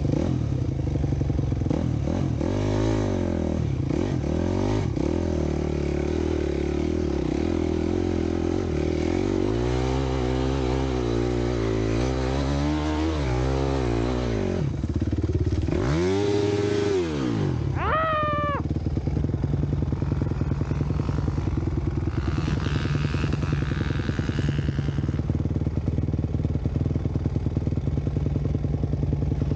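Dirt bike engine running under way, its revs rising and falling repeatedly as the throttle is worked; about eighteen seconds in it settles into a steady, even note.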